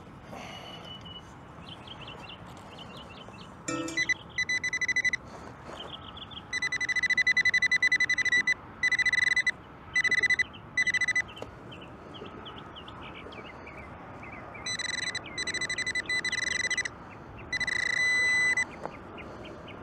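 Metal detector beeping with a high electronic tone over a buried target, in short runs and longer held stretches that stop and restart, as the coin in the hole is located.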